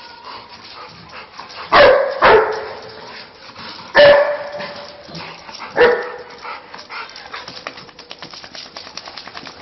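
A dog barking four times: two quick barks about two seconds in, another about four seconds in and one near six seconds. Faint rapid clicking follows near the end.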